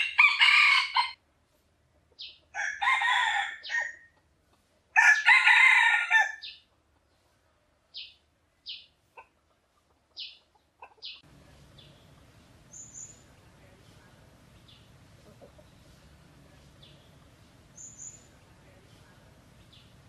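Red junglefowl rooster crowing three times in quick succession, each crow one to two seconds long, followed by a few short sharp chirps. After about eleven seconds, only a faint steady background with occasional brief high bird notes.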